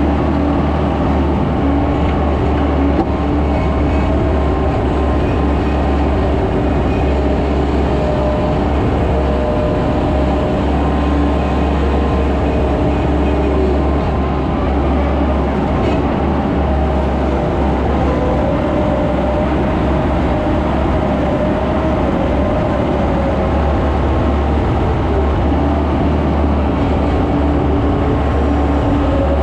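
Skid steer engine running steadily under load, with a whine that rises and falls in pitch as the machine works.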